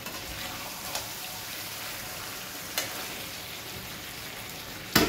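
Chicken masala sizzling as it fries in a thick-walled kadai, its water cooked off, with a ladle stirring and clicking against the pan a few times. Two sharper knocks of the ladle on the pan come near the end.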